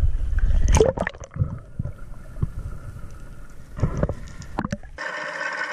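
Water splashing and sloshing at the surface as a freediver dives. It turns into muffled underwater sound with scattered clicks and a couple of bubbly bursts. Near the end it cuts to a steady hum.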